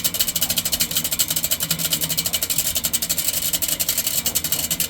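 Box fan motor spinning a steel-spoked bicycle rim in place of its blades, running with a rapid, even ticking rattle over a low hum. It has just been switched to its low setting, which the owner thinks does not work.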